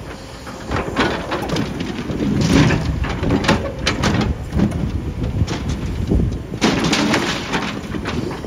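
Excavator diesel engine and hydraulics running under load as the steel bucket scrapes and clanks through broken reinforced concrete, rebar and rubble. The scraping and knocking come in clusters about a second in, again from about two and a half to four seconds, and near seven seconds.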